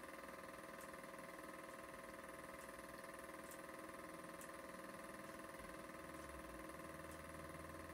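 Super 8 film projector running: a steady whir with several held tones and faint ticks about once a second.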